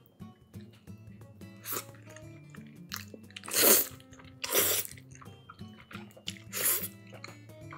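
A person slurping thick noodles, four short slurps with the loudest a little before the middle, over soft background music.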